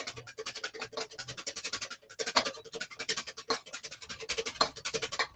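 Wire whisk beating egg yolks in a metal mixing bowl, in rapid, even scraping strokes: hand-whisking homemade mayonnaise fast so the emulsion does not split.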